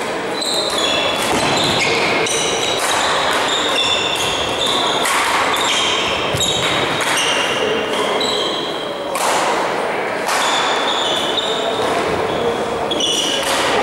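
Badminton shoes squeaking in many short, high chirps on a sports hall floor, mixed with sharp strokes of racket hits on the shuttlecock and footfalls during a doubles rally.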